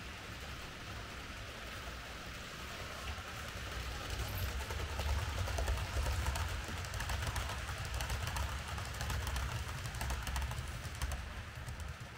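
H0-scale Märklin model train running on the layout: a steady low motor hum and rolling noise that grows louder from about four seconds in and eases off near the end, with quick clicking of wheels over the track as it passes.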